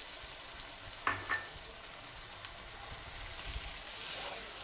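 Onion masala sizzling in a pan, with half a cup of the beef's cooking water added. Two sharp clinks of a utensil against the pan come about a second in.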